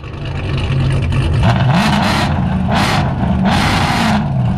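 Mercedes-AMG car's exhaust, really loud, as the engine revs up under acceleration, its pitch rising with three raspy blasts of exhaust noise about a second apart.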